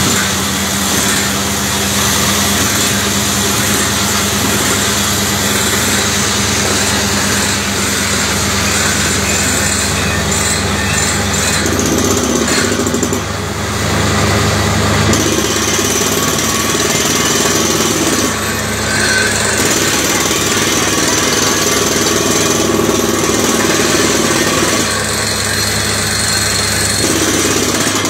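Two PDTHR-300 truck-mounted water well drilling rigs running together under test: a loud, steady din of engines and air compressor while drilling, with compressed air blasting dust and cuttings out of the holes.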